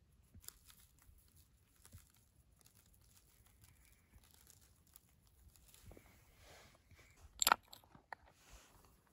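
Faint, scattered crunching and small handling noises in packed snow, with one sharp, louder crunch about seven and a half seconds in.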